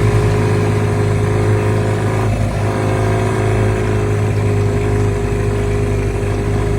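Outboard motor running steadily at an even speed, freshly tuned up with a rebuilt carburettor and fuel pump, and running well.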